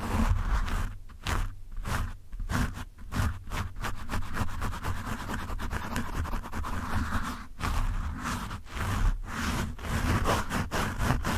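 Fingertips and nails scratching roughly right on a foam microphone windscreen: a dense, fast scratchy rustle with a heavy low rumble from the pressure on the mic, broken by many brief pauses.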